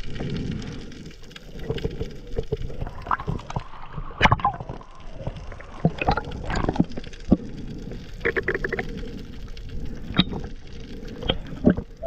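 Underwater sound picked up by a diver's camera: a steady low rush of water with scattered sharp clicks and knocks, and a short burst of rapid ticking a little past the middle.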